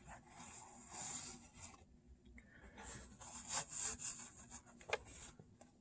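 Paper towel rustling and rubbing as it is used to wipe the mouth, in two scratchy spells of a second or so each, with a few small clicks and a sharper click near the end.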